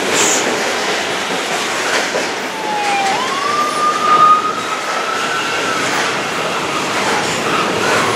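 Double-stack intermodal container cars rolling past below, a steady rumble with faint clicking of the wheels. From about two to six seconds in, a thin high squeal wavers in pitch: it dips, jumps up, then slowly rises. This is typical of wheel flanges squealing.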